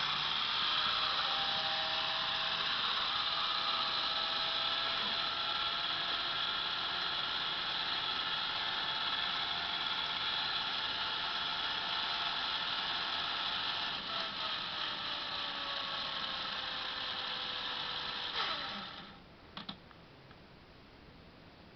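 LEGO Technic gyroscope's two Power Functions XL motors and gear train running at speed with a steady whine; about fourteen seconds in the pitch falls as they spin down, and the sound stops a few seconds before the end, followed by a couple of faint clicks.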